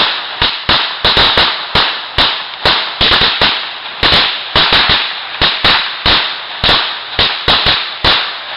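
A run of firecrackers going off one after another: sharp bangs at irregular spacing, about two to four a second, with a hiss between them.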